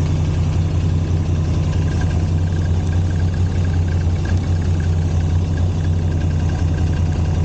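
Moto Guzzi V85 TT's air-cooled V-twin idling steadily, with a faint pulsing buzz from about two seconds in. The uploader traces the noise to an exhaust header cover left half loose by a loose screw, vibrating against the pipe.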